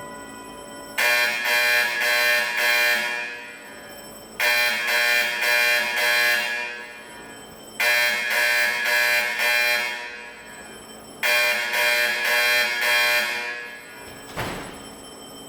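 Autocall Vibratone fire alarm horns sounding the 4-4-4-4 marching code: four groups of four short blasts, each group starting about three and a half seconds after the last. A short knock comes near the end.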